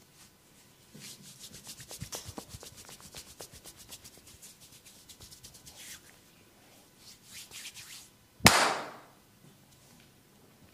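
A masseur's hands working on skin: a fast run of rubbing and patting strokes, then a few softer rubs, and one loud sharp smack about three-quarters of the way through.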